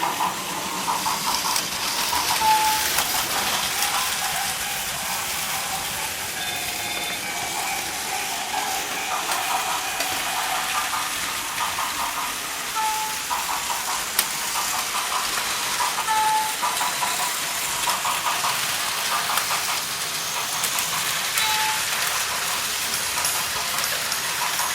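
Plarail battery-powered toy trains running on plastic track: a steady whirring and clattering, with a short high beep several times.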